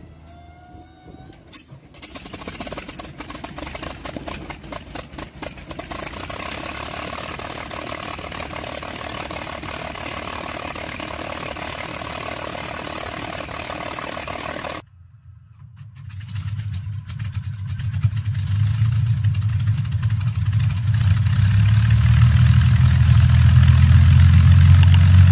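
A short rising whine, then a steady noise while the propeller stands still. After a sudden cut about fifteen seconds in, a P-51D Mustang's Packard Merlin V-12 runs with its propeller turning, its low drone growing steadily louder.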